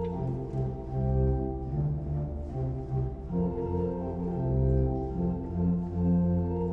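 Church pipe organ playing sustained chords over a bass line that moves from note to note.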